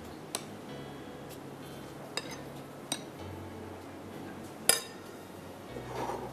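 A metal spoon clinking against glassware as whipped cream is spooned into glass dessert cups: a handful of sharp, ringing clinks, the loudest about a second and a half before the end. Faint background music runs underneath.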